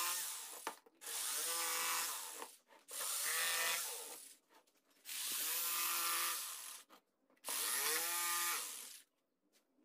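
Electric jigsaw cutting through an MDF-backed wood-strip panel along a feather outline, in about five short runs of one to two seconds each, separated by silent breaks.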